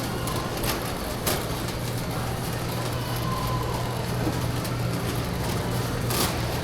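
Warehouse store background: a steady low hum, with a few sharp clacks about a second in and again near the end.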